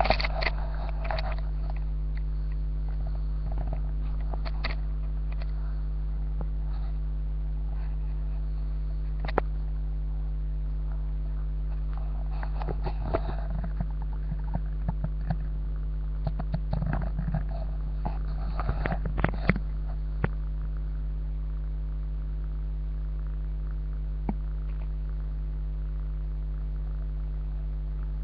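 Steady low electrical hum with a row of even overtones, like mains hum picked up by a webcam microphone. Scattered clicks and short rustles come and go, bunched about halfway through and again about two-thirds of the way in.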